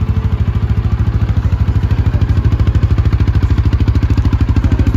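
CFMoto CForce 500 ATV's single-cylinder engine idling, a steady, even putter of about ten beats a second.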